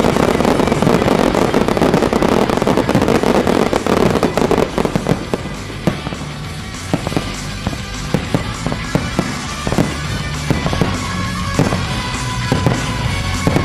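Fireworks display with music playing. A dense barrage of crackling bursts and launches fills about the first five seconds, then thins out to separate shell bursts, each a sharp bang.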